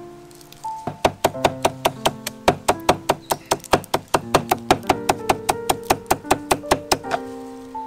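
Knife chopping leafy greens on a wooden chopping block: a fast, even series of knocks, about five a second, that starts about a second in and stops near the end, over soft background music.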